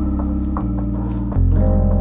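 Instrumental background music with plucked string notes over a held bass line that moves to a new note twice.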